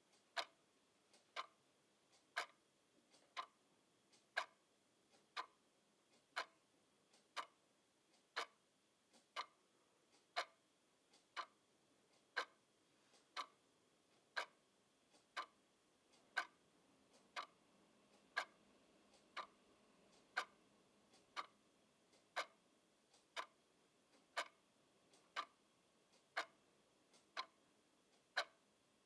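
Mechanical clock ticking steadily, one sharp tick about every second.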